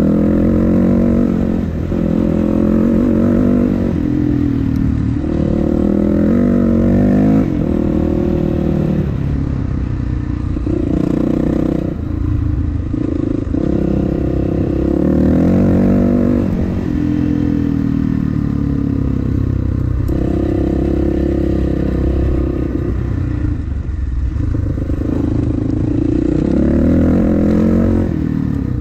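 Dirt bike engine running hard while being ridden, its pitch climbing and dropping every few seconds as the throttle is opened and rolled off, with brief dips between pulls.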